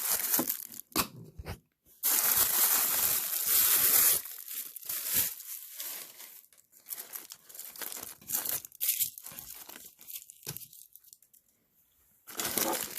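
Packaging wrapper being torn open, with one loud tear lasting about two seconds, followed by intermittent crinkling and rustling of the wrappers.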